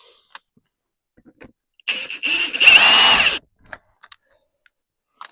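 A power impact wrench runs in one loud burst of about a second and a half, with a high whine, spinning the lug nuts onto the refitted wheel.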